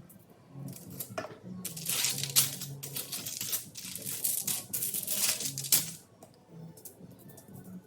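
A spice shaker shaken over meat in a run of quick shakes, dry seasoning rattling out, from about a second in until about six seconds in. Faint background music plays underneath.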